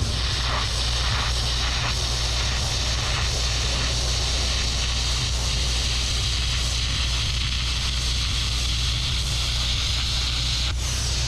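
Air carbon arc gouging: a copper-coated carbon rod in a gouging torch arcing against the steel with a steady, loud hiss and crackle of the compressed-air jet, cutting across the old hitch mount. A steady low hum runs beneath it.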